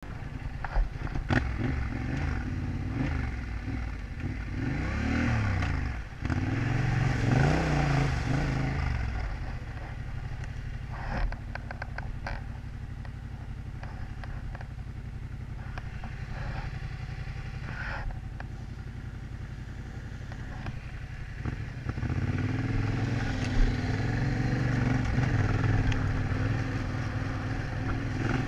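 Yamaha Ténéré 700's parallel-twin engine, revs rising and falling through the gears at first. It then settles to low, steady revs, with scattered clatters and knocks as the bike goes over rough dirt track, and pulls harder again in the last quarter.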